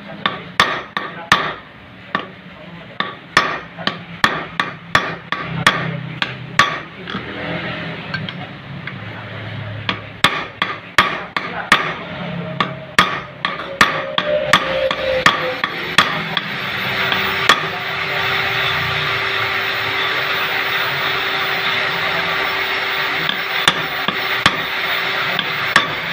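Repeated hammer taps on metal, roughly one or two a second, fitting new rubber dampers into a Yamaha Jupiter Z motorcycle clutch housing. About halfway through, a steady hiss with a constant hum rises under the taps.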